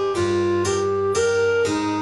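Background music: a gentle melody of plucked notes, about two a second, over held chords.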